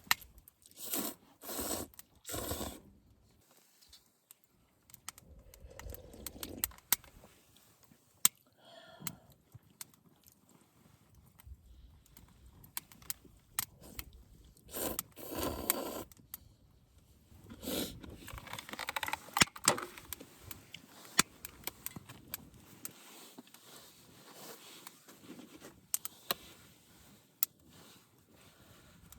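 Objects being handled: short bouts of scraping and rustling with sharp clicks between them, and pauses.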